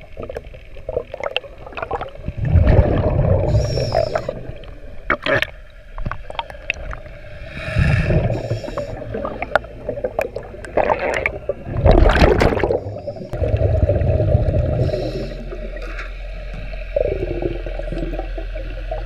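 Scuba regulator breathing heard underwater: exhaled bubbles gurgle out in low rumbling gusts every few seconds, with sharp clicks and a steady hum in the water between breaths.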